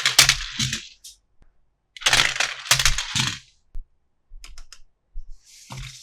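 Hands handling plastic toy parts and packaging: two bursts of clattering, crackling clicks, then a few light ticks and a short hiss near the end.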